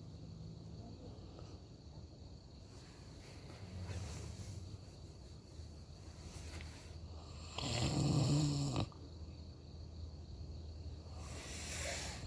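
A person snoring: one loud, rough snore about eight seconds in, lasting about a second, with quieter breaths around four seconds in and near the end, over a steady low hum.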